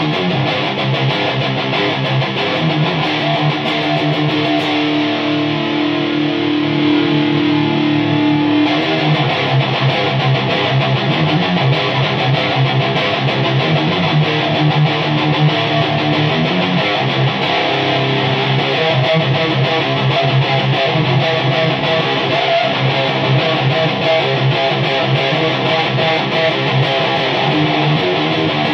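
Distorted high-gain electric guitar riffing continuously through a homemade tube amplifier built on 1930s AF7 and AL4 valves, played into a Marshall 4x12 cabinet and heard through a phone's microphone. One note is held for several seconds near the start.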